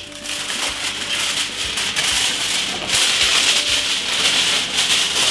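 Freshly baked salmon fillets sizzling in a hot oven tray: a steady, dense crackling hiss.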